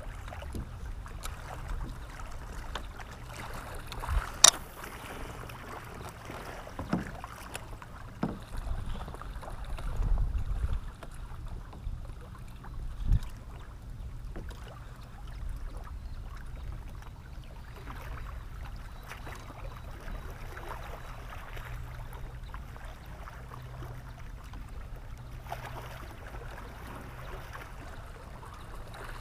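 Water sloshing against a kayak's hull under a steady low rumble. A few sharp knocks and clicks of gear against the boat stand out, the loudest about four and a half seconds in and another about thirteen seconds in.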